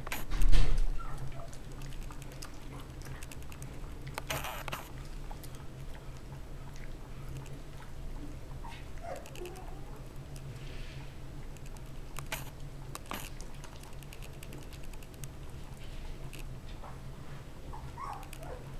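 Four-week-old puppies scrabbling and mouthing on a blanket: small scratching, clicking and nibbling sounds, with a couple of faint high squeaks. A loud thump about half a second in, and a low steady hum underneath.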